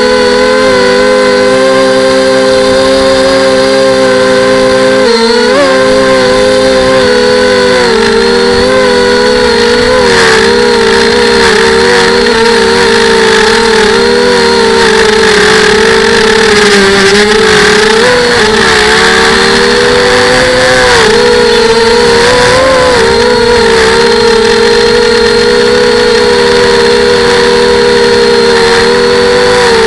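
FPV quadcopter's motors whining loudly and continuously, the pitch wavering up and down with throttle changes, with a sharp dip and recovery about five seconds in.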